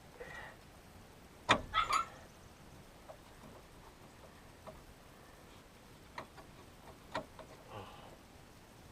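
Scattered metallic clinks and clicks of a small socket ratchet and hand tools working a bolt, with a louder clank about one and a half seconds in followed by a few lighter ticks.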